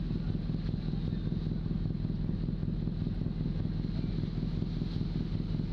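Steady low drone of a ship's engine running, with no change in pitch or level.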